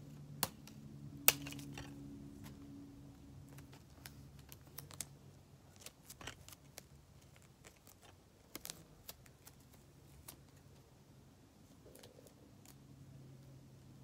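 Sticky tape being pulled, torn and pressed onto a paper cutout: scattered small clicks and crackles, with one sharper snap a little over a second in.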